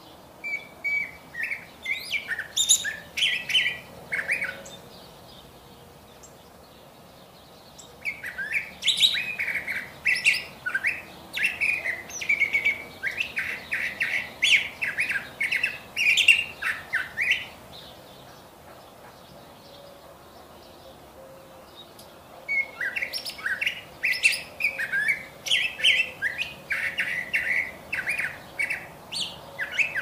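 Curve-billed thrasher singing: three long bouts of rapid, varied phrases, with pauses of a few seconds between them.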